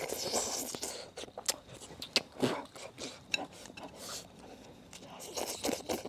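A person eating from a bowl with chopsticks: slurping and chewing, with scattered small clicks.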